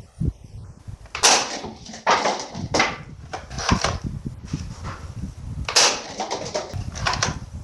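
Plastic toy gun being handled: a series of short, sharp clacks and rattles, bunched closer together near the end.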